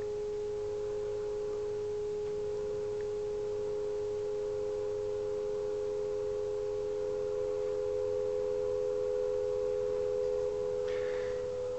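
Steady test tone from a Uniden 2020 HF transceiver's audio output, produced by a signal generator's signal being received: two close tones in the mid-range, with faint receiver hiss behind them.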